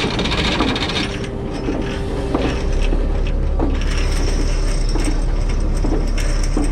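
A party boat's engines rumbling low and steady as the boat gets under way, getting louder and steadier a couple of seconds in, with scattered mechanical clicks and knocks over the top.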